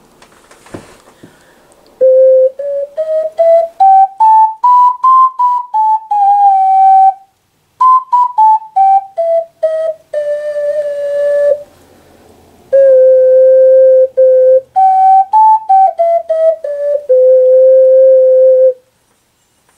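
White alto C ocarina with a crackle finish being played: a short melody that begins about two seconds in, climbs step by step about an octave and comes back down, and ends on a long low note. A brief breath or handling noise comes just before it.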